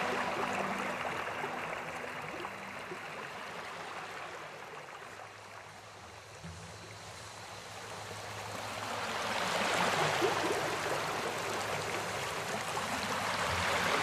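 Shallow river water rushing and rippling over rocks, a steady rushing hiss that dies down to its quietest about halfway through, then swells back up.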